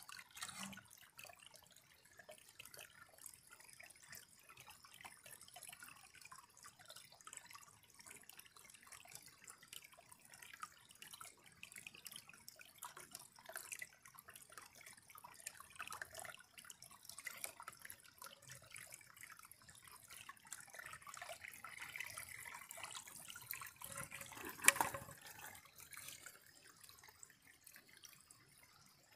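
A thin trickle of water dripping and running off a stick into a cut green bamboo tube, filling it. One sharp knock stands out late on.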